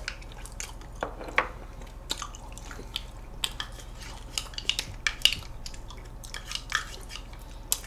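Scattered small clicks and wet smacks of people eating ice cream: small plastic spoons scraping and tapping in ice cream cups, and lips and mouths on the spoons.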